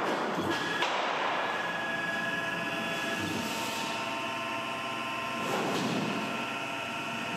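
MR-1 gantry CNC mill's spindle running at 8000 RPM with a 1/4-inch 90-degree chamfer mill, a steady whine of several tones over the hiss of coolant spray, as the tool makes a light finishing chamfer pass on an aluminium part.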